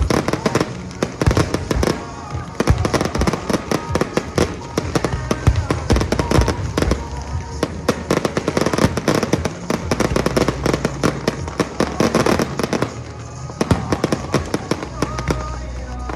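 Dense barrage of aerial firework bursts, many bangs and crackles a second, over music playing alongside. The bursts thin out near the end.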